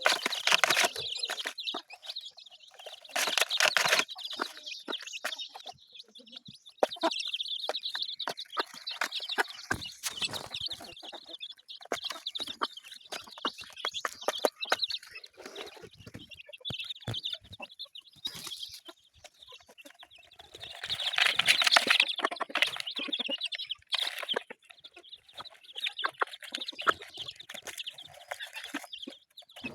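A flock of chickens clucking and calling, with many short clicks mixed in. The calling grows louder about three seconds in and again about twenty-one seconds in.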